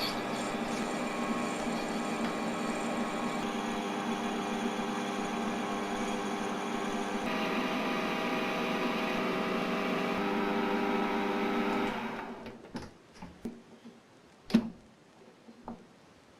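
A small motor whirring steadily, shifting pitch slightly twice, then stopping about twelve seconds in, followed by a few scattered clicks and knocks.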